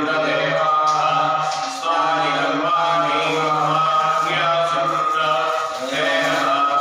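A man chanting mantras in long, evenly held phrases over a steady low tone, pausing briefly about two seconds in and again near the end, as the abhishekam offering is poured.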